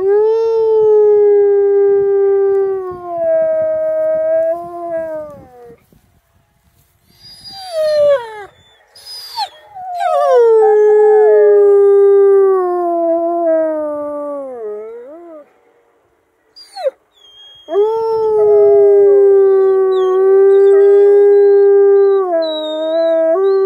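Wolfdogs howling: three long, drawn-out howls of about five seconds each, held at a steady pitch, with a shorter rising howl between the first two; the middle long howl falls away at its end.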